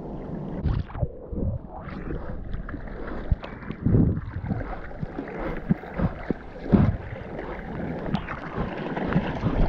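Seawater splashing and sloshing against a surfboard moving through the surf, heard close up from a board-mounted camera, with uneven louder splashes and wind on the microphone.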